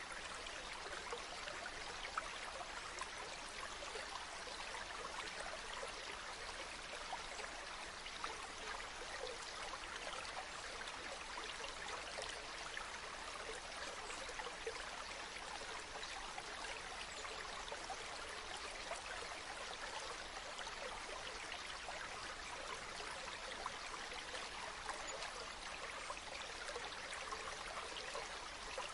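A stream of water running steadily over stones, an even rushing and trickling.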